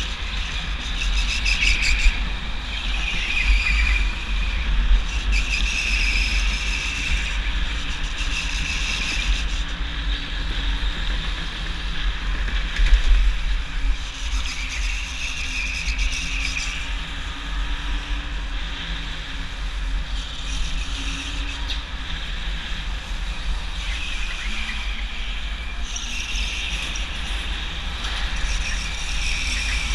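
Onboard sound of a go-kart lapping an indoor track: a steady low rumble of the kart and wind on the microphone. The tyres squeal in short stretches several times through the corners.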